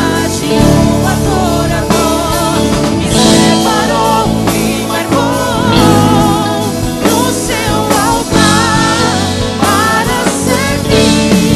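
Worship music: a voice singing with a wavering, vibrato-laden line over a full, continuous instrumental backing.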